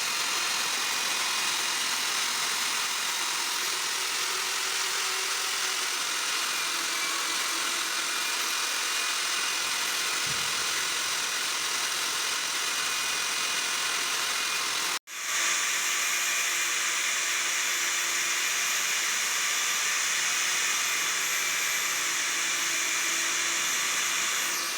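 Diamond core drill running steadily as its bit cuts into a concrete slab, a continuous high hissing whine. It cuts out for an instant about two-thirds of the way through and comes straight back, a little brighter.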